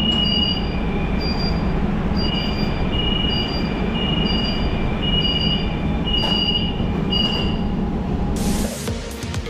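Metro coach door warning beeps, a short two-tone electronic beep about once a second while the doors open and close, over the steady hum of the stopped train. A short hiss comes near the end.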